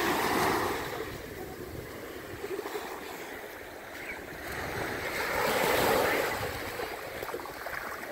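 Small waves breaking and washing up the beach, swelling near the start and again about six seconds in.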